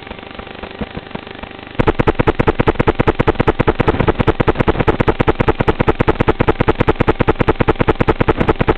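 An FPV quadcopter's motors running faintly. About two seconds in, a loud, fast, regular clicking starts suddenly, about ten clicks a second, and continues after the quad is disarmed.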